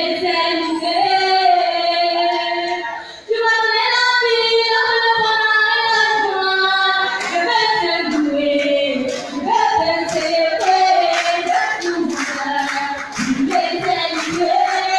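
Voices singing a song together in long held notes. Rhythmic hand clapping joins about halfway through.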